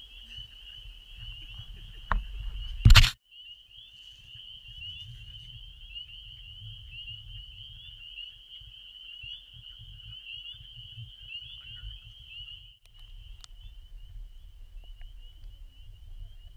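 A dense chorus of spring peepers: many overlapping high-pitched peeps merging into a steady shrill. About three seconds in there is a short, loud knock.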